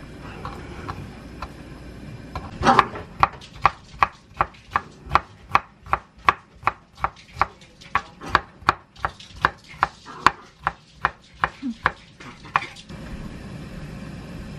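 Chef's knife chopping pickled yellow radish (danmuji) into strips on a wooden cutting board: a steady run of blade strikes on the board, about two and a half a second, starting a couple of seconds in and stopping near the end.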